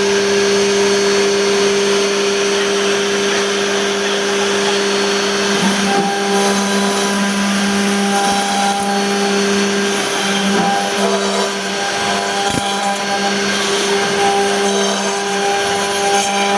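CNC door-machining router running: its spindle motor gives a steady, even hum with a noisy spread above it throughout.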